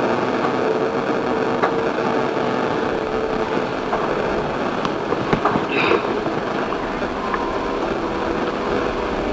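Racing outboard motors running at speed, a steady engine drone over a wash of noise, with a few short knocks about five seconds in.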